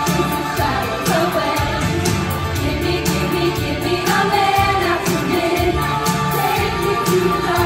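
Female chorus singing an upbeat disco-pop song over instrumental accompaniment.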